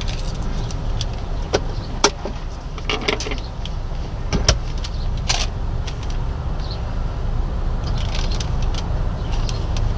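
Car engine idling with a steady low rumble while coins and small objects are handled inside the cabin: several sharp clicks in the first half, then a run of light metallic jingling near the end as the change is taken.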